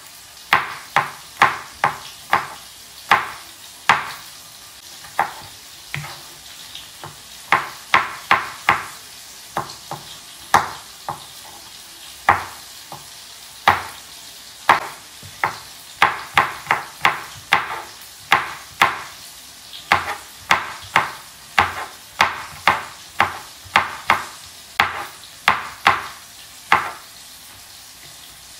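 Kitchen knife chopping on a cutting board, one sharp stroke at a time, about two a second with a few short pauses.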